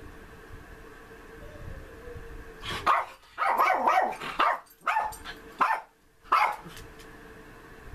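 Small dog barking: a quick flurry of barks about three seconds in, followed by a few single barks.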